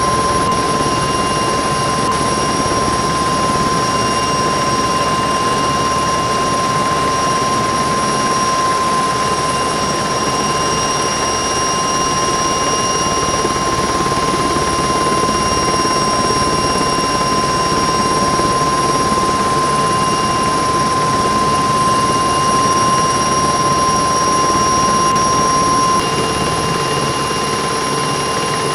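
Helicopter turbine engines and rotor running steadily: a high, constant whine over a dense rushing noise. The level drops slightly near the end.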